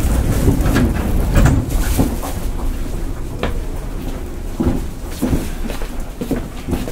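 Interior sound of a Tokyu 8500-series electric train car: a low rumble with irregular knocks and clatters.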